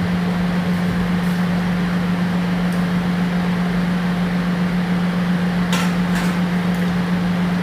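Steady low machine hum with a hiss over it, and two light clinks about six seconds in.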